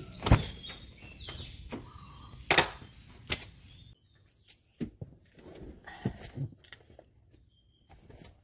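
A car door handle is pulled and the door latch clunks open, followed by a couple more knocks. Then come soft scattered clicks and rustling as someone settles into the driver's seat.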